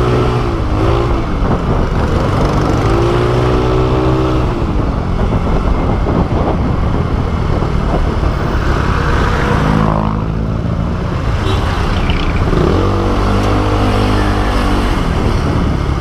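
Vehicle engine under way, its pitch rising and falling several times as it accelerates and eases off, over steady loud road and wind noise.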